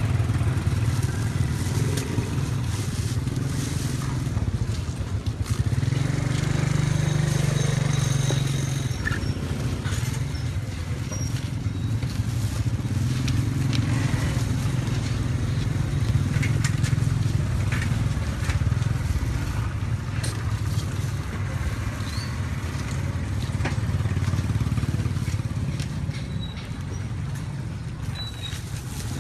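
Street traffic noise: the low steady run of motorbike engines, swelling and fading as they pass, with scattered light clicks and clatter.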